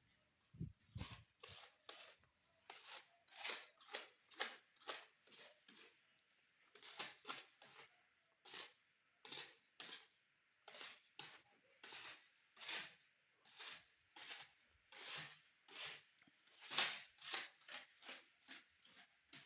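Repeated short, gritty scraping strokes, roughly two a second and uneven in loudness.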